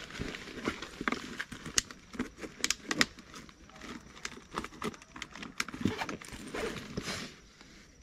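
A backpack and a plastic water bottle being handled and searched: irregular sharp clicks, taps and rustling.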